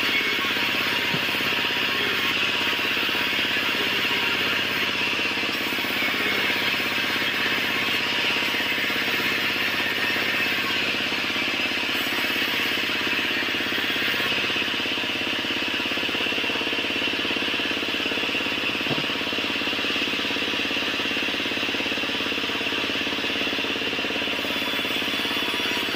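Vertical band saw running steadily while a timber beam is fed through its blade, an even, continuous sawing noise.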